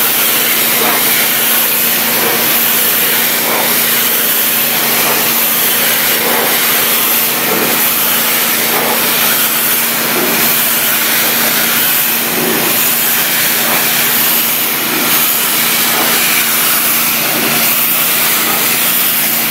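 Hot-water pressure washer running at 3000 psi, its spray hissing steadily against an aggregate wall, with the machine's steady hum underneath.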